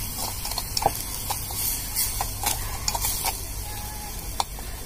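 A spoon stirring and scraping a spice masala of onion paste, garlic paste and chilli powder as it fries in oil in a small clay pot, with a steady sizzle under irregular light scrapes and taps.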